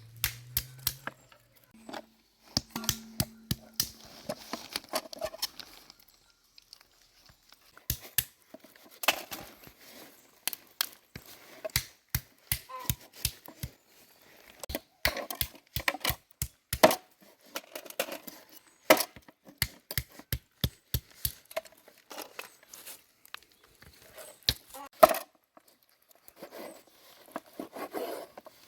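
Hands preparing food: irregular sharp knocks and clicks, several loud, mixed with bouts of tearing and crinkling.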